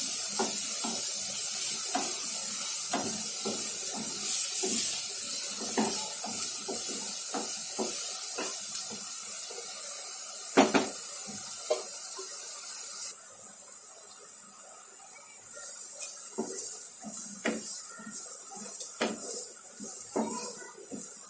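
Finely chopped onions frying in hot oil in a pan, with a steady sizzle while a spoon stirs them, clicking and scraping against the pan. There is one louder knock midway. The sizzle drops off abruptly about halfway through and continues more quietly.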